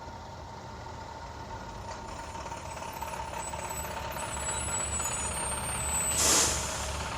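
Sound effect of a city bus engine running and slowly growing louder as it pulls up, with a sharp hiss of air brakes about six seconds in as it stops.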